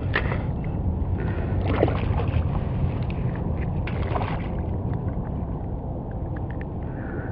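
A small speckled trout splashing at the surface as it is reeled in beside a kayak, in several short bursts, over a steady low rumble.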